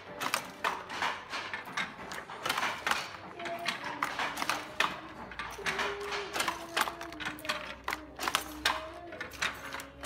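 Wooden foot-treadle handlooms weaving, a quick irregular run of sharp wooden clacks as the shuttle is driven through and the beater is banged home. Music plays faintly underneath.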